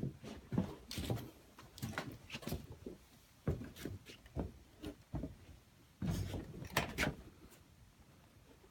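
Irregular knocks, thumps and short scrapes from things being handled and moved, the heaviest at the very start and again about six to seven seconds in.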